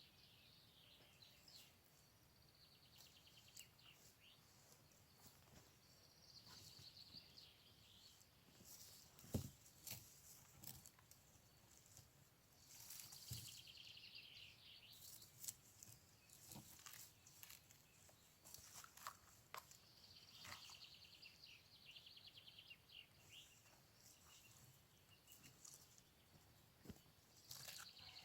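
Faint birdsong outdoors: small birds repeating fast, high trills every few seconds. Scattered light knocks and rustles come through, with one sharper knock about a third of the way in.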